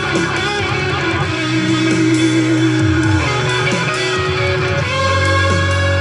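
Rock music led by electric guitar, with a steady bass line underneath.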